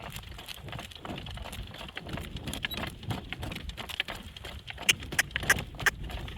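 Horse trotting in harness and pulling a cart: a run of hoofbeats with harness and cart clinking and rattling over a low rumble, with a few louder clicks near the end.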